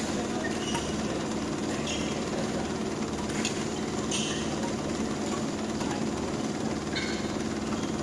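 Steady low hum of a badminton hall, with several short, high squeaks of court shoes on the mat and a couple of sharp clicks from racket hits.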